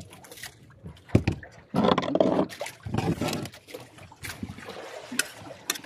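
Spoons clicking and scraping on plates, with water sloshing against a small boat's hull, loudest about two seconds in.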